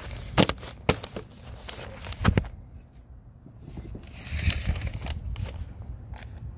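Handling noise of a hand-held phone: three sharp knocks in the first two and a half seconds, then rubbing and scuffing about four and a half seconds in.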